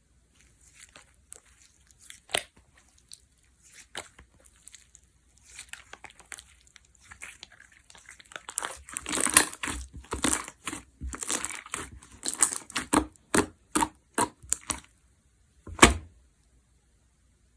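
Jiggly slime being squeezed and stretched by hand, with sticky clicks and crackling pops. Scattered clicks at first, then a dense run of pops and crackles for several seconds, and one last sharp pop near the end.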